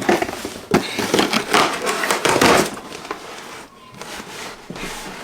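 Packaging being opened by hand: cardboard and plastic rustling and crinkling in irregular bursts.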